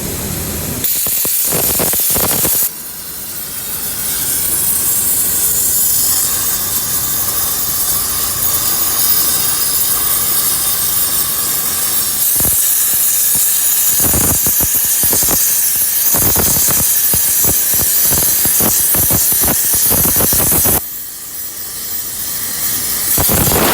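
Plasma cutter arc cutting thick steel plate: a loud, steady hiss with crackling that starts about a second in and dips briefly twice.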